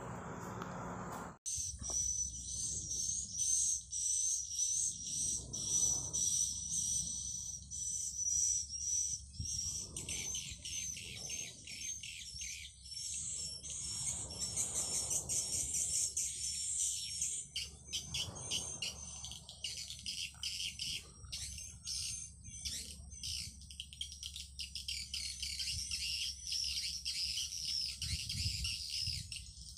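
Swiftlet call sound (suara panggil walet): a dense, unbroken twittering of rapid high-pitched chirps and trills, the lure recording played to draw edible-nest swiftlets into a swiftlet house. It starts about a second and a half in.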